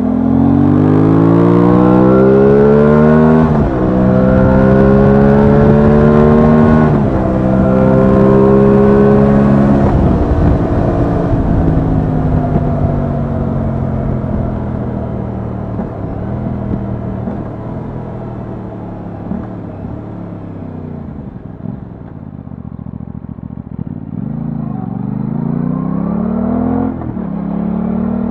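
Aprilia Tuono 660's parallel-twin engine heard from the rider's seat, accelerating hard through the gears: the pitch climbs, drops at an upshift about three and a half seconds in, climbs again, and drops at a second upshift about seven seconds in. It then settles to a steadier, lower note while cruising, eases off, and rises again near the end.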